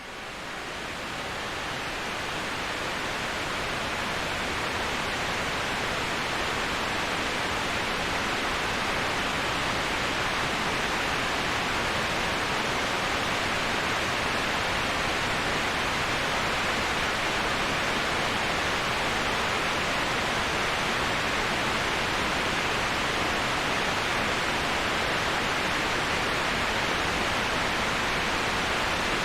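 Steady, even rushing of waterfall white noise, with no distinct splashes, fading in from silence over the first few seconds.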